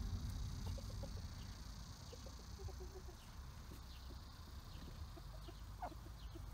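Chickens clucking faintly in short, scattered calls, with one louder call near the end.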